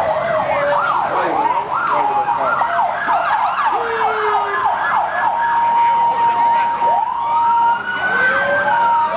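Several emergency-vehicle sirens sounding together in fast yelping sweeps. From about five seconds in, a steady held tone and slower rising and falling wails join them.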